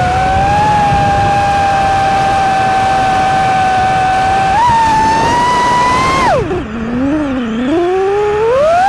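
FPV quadcopter's electric motors whining at a steady high pitch over low wind rush. The whine steps up and rises slightly about halfway through, drops steeply as the throttle is cut for a dive near six seconds in, then climbs back up as power returns.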